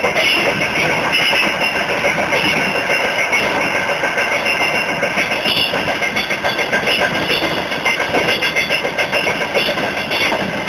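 Steel wheels of a moving freight train clattering over the rail joints: a continuous loud rumble with a fast, even beat.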